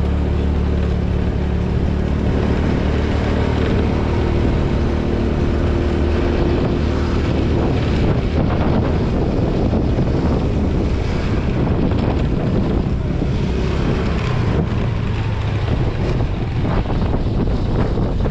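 TVS Jupiter scooter engine running on the move, under heavy wind noise on the microphone. The engine's steady hum is clearest for the first six seconds or so, then mostly buried in the wind and road rush.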